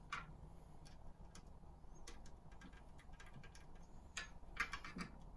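Faint, irregular clicks and light taps of small plastic model parts and a wire connector handled between the fingers, with a cluster of sharper clicks a little after four seconds in.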